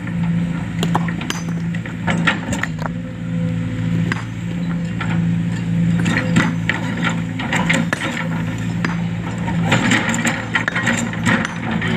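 Hydraulic excavator's diesel engine running steadily, with scattered knocks and scraping as the bucket pushes and drags a large boulder over the ground.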